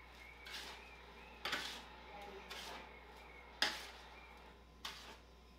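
A spoon stirring dry breading mix and panko crumbs on a metal baking tray: faint scraping, with about five short scrapes and taps roughly a second apart.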